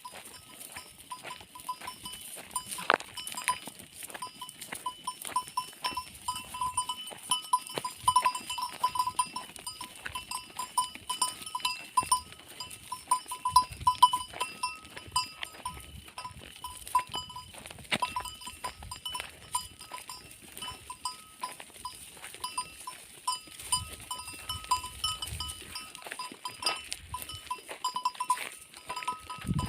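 Bells on a herd of goats clinking and jangling nonstop as the animals move, a fast irregular ringing at one bell pitch.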